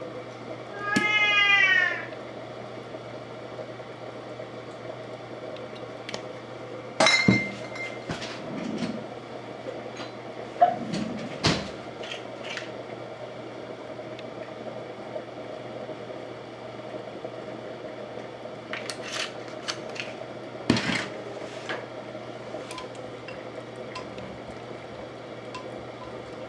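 A domestic cat gives one drawn-out meow about a second in, rising and falling in pitch. After it come scattered clinks and knocks of a jar and utensils on a stainless-steel counter, over a steady low hum.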